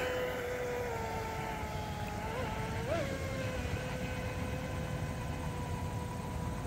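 Pro Boat UL19XR RC outrigger's brushless electric motor and drive running at full speed with a steady high whine as the boat speeds away. The pitch sags slightly at first, then jumps briefly twice, about two and a half and three seconds in.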